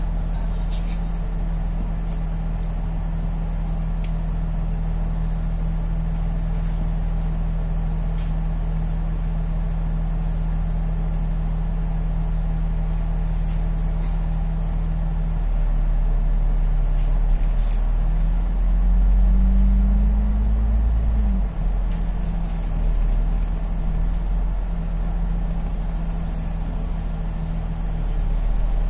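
Bus engine heard from inside a double-decker bus, idling with a steady low hum, then revving up and back down about two-thirds of the way through as the bus pulls forward in traffic, and rising again near the end.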